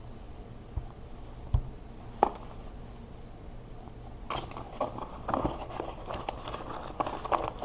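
Hands unwrapping and handling an Amazon Echo's plastic-wrapped packaging: a few light knocks, then from about four seconds in a dense run of crackling and rustling.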